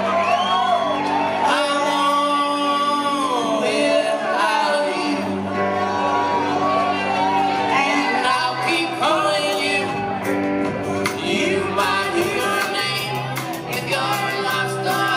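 Live garage-rock band playing a song: male and female voices singing over electric guitars, heard in a large hall.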